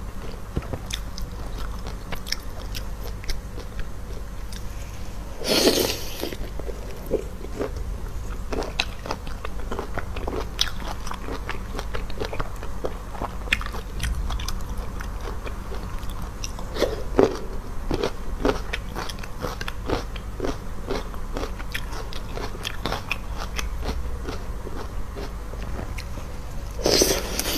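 Close-miked eating: a person biting, chewing and crunching food picked up by hand, heard as many small wet clicks and crunches over a low hum, with two louder rushes of noise, about six seconds in and near the end.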